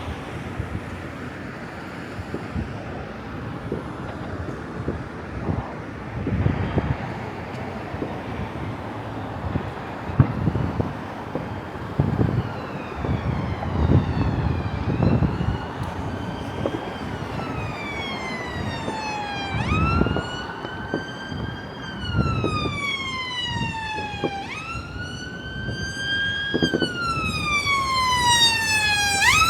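An emergency vehicle's wailing siren comes in about a third of the way through. Each sweep rises and then falls over four to five seconds, and the siren grows louder as it approaches. Under it are low thumps of distant fireworks and a noisy outdoor city background.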